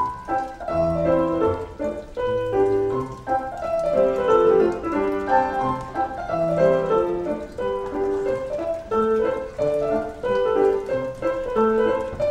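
Piano music: a lively piece played as a continuous stream of notes moving up and down in runs.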